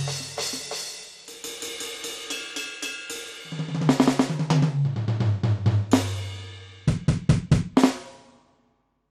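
Electronic drum kit with a dbdrums db10 V3 sound module being played as a sound test. A cymbal crash rings out first, then a run of tom hits descends in pitch, then a quick run of low drum hits stops abruptly about a second before the end.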